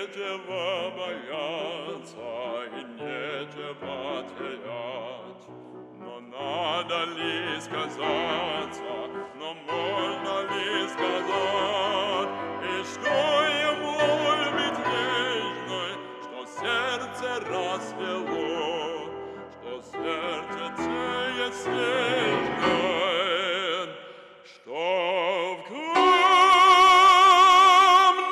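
Operatic singing voice with wide vibrato over piano accompaniment, swelling to a loud held high note near the end.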